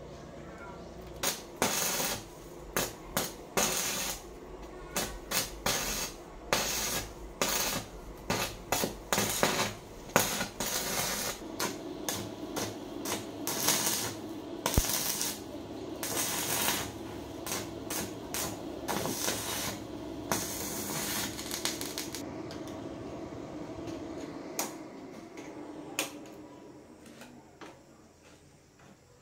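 Stick (arc) welding: the electrode arc crackles and sputters in many short bursts as it is struck and broken again and again. The crackling stops a little over 20 seconds in, leaving a low steady hum that fades away near the end.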